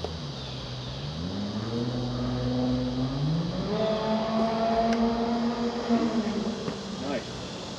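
An engine running, its pitch stepping up twice and then holding steady before it fades near the end.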